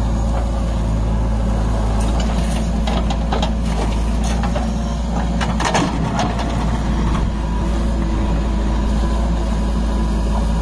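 Heavy diesel machinery, a tractor and a JCB backhoe, running steadily with a loud low drone. Between about two and seven seconds in, a run of sharp clicks and knocks sounds over it.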